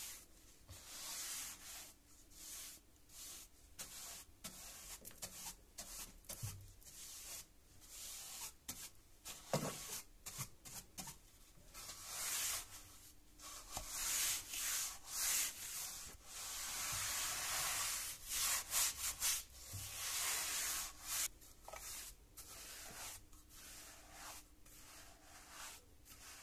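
Wide natural-bristle paint brush sweeping dust along a wooden stair tread, a swishing scratch of bristles in many short strokes. The strokes come quicker and louder around the middle.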